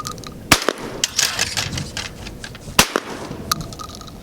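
Two loud gunshots about two and a quarter seconds apart, with smaller sharp cracks around them.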